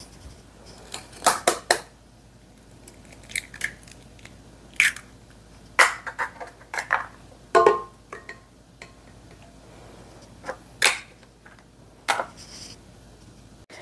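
Scattered clicks and knocks of kitchenware being handled: a small glass dish holding an egg is picked up, tipped and set down by a stainless steel mixer bowl on a stone counter, with one brief ringing clink just past halfway.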